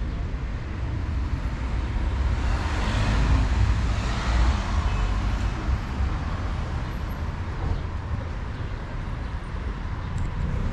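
Street traffic noise, a steady rumble with a passing vehicle swelling louder about three to five seconds in.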